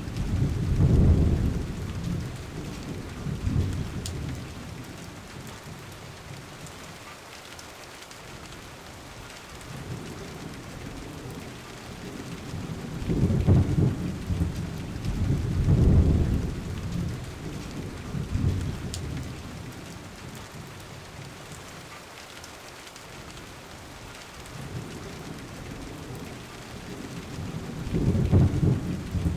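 Steady rain with thunder rumbling low three times: at the start, a longer roll about halfway through, and again near the end.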